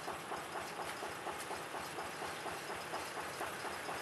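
Small narrow-gauge diesel locomotive's engine running, with a steady pulsing exhaust beat of about five or six pulses a second, as the locomotive moves slowly along the track.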